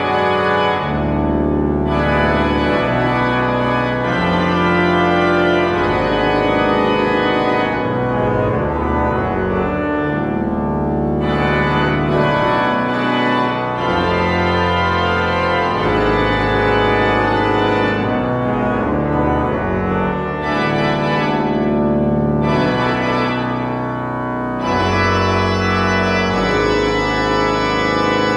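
Quimby pipe organ playing a toccata: rapid notes on the manuals over long bass notes that change every second or two.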